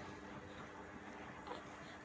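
Quiet room tone with a faint steady hum and one faint click about halfway through.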